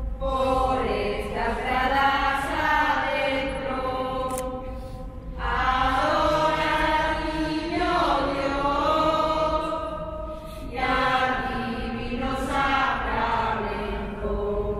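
A group of singers, women and children among them, singing a song together in three phrases of about five seconds each, with short pauses between.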